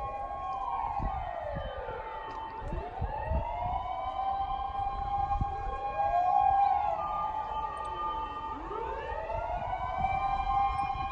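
Several fire-engine and police-car sirens wailing at once and out of step, each sweeping up and down in slow arcs a few seconds long.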